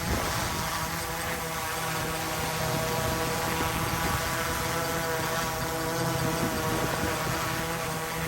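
Quadcopter drone's propellers humming steadily in flight, a DJI Mavic 3, with gusty wind on the microphone.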